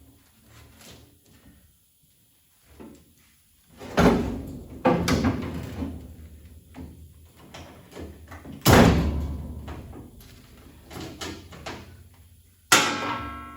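Heavy steel parts of a round baler clanking and banging as a section is worked back into place: several sharp knocks, the loudest about four and nine seconds in, with a last clank near the end that rings briefly.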